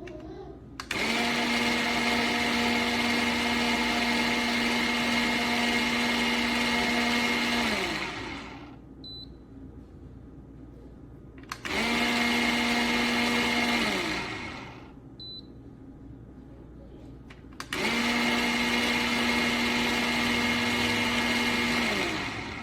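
Fellow Opus electric conical burr coffee grinder's motor running in three runs, about seven, two and a half, and five seconds long, with a steady hum. At the end of each run the pitch slides down as the motor spins down.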